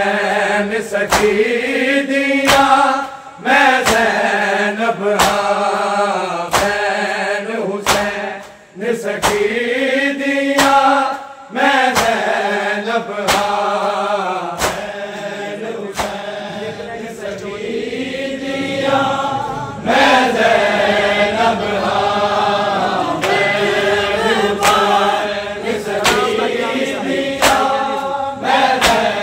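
Male voices chanting a Punjabi noha, a mourning lament sung in unison. The singing is punctuated by a steady rhythm of sharp beats, about one every three-quarters of a second, from a crowd of mourners doing matam, striking their bare chests with their hands.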